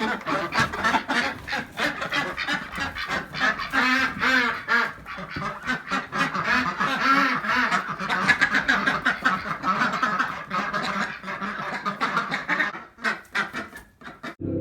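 A flock of ducks quacking, many rapid calls overlapping, thinning out near the end.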